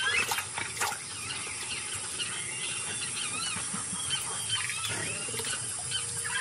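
A family of giant otters calling: many short, high squeaks and chirps, overlapping one another, with scattered clicks.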